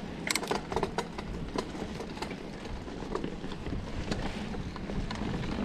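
Mountain bikes rolling down a dirt trail: a steady rumble of tyres on the ground with scattered clicks and rattles from the bikes, most of them in a cluster about half a second in.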